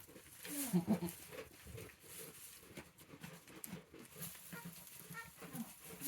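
Goats making a few short, soft, low calls, clustered about a second in, with faint rustling and small clicks between them.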